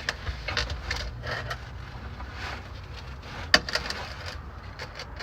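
Plastic quart bottle of gear oil crackling and popping as it is squeezed to push oil into the rear differential fill hole, with a sharp knock about three and a half seconds in.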